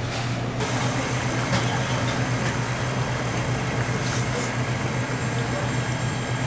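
A steady low mechanical hum, like a motor or fan running, over an even wash of background noise.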